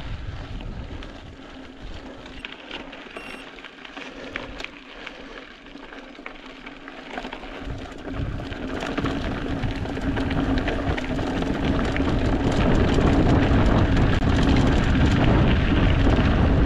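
Mountain bike riding over rough ground: tyres crunching on gravel and the bike rattling with many small clicks, getting louder and rougher about halfway through, when a steady low hum joins in.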